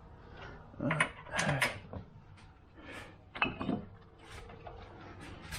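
Metal hand tools and car parts clanking and being handled, in a few short bursts.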